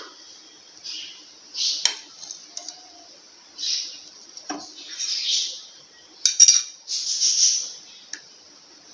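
Steel ladle clinking against a nonstick pan and a glass dessert cup while scooping soaked gulab jamun and sugar syrup: a few sharp clinks, the loudest cluster about two-thirds of the way through, between soft swishes of syrup and ladle moving in the pan.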